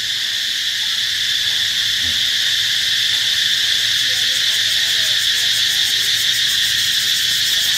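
Loud, steady, dense chorus of insects: an unbroken high-pitched buzzing drone.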